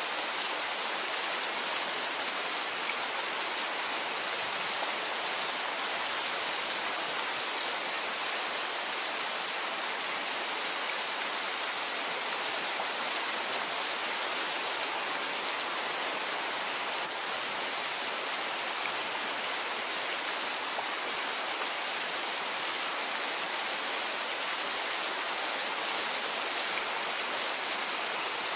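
Steady rain falling: a dense, even hiss that holds without breaks.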